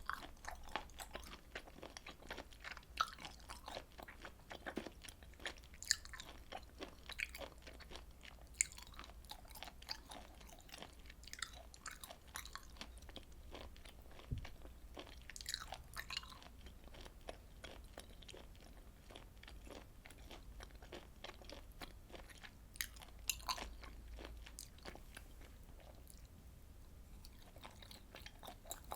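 Close-miked chewing of grilled beef intestine and tripe: wet, sticky mouth sounds with many small irregular clicks and occasional sharper crunchy bites.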